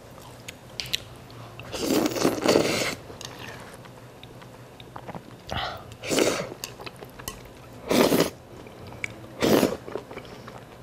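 A person slurping noodles from a bowl held to the mouth: four loud slurps, the first about a second long and the rest shorter, with quieter chewing between them.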